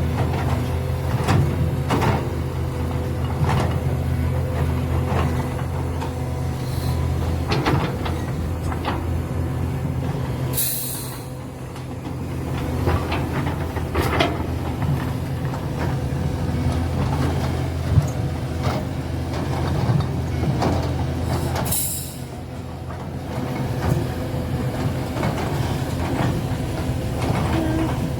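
Link-Belt hydraulic excavator working: its diesel engine runs steadily under scattered knocks and clanks. Two short hisses come about ten seconds apart, each followed by a brief drop in engine level.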